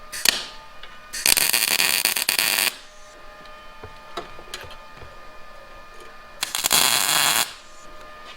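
Two short welding passes, each a crackling sizzle, the first about a second and a half long starting about a second in, the second about a second long near the end, as a bent bracket for the battery mount is welded in two places.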